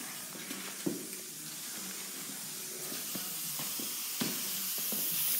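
Aerosol spray-paint can hissing as it sprays paint onto a metal fender, louder in the second half, with a couple of light knocks.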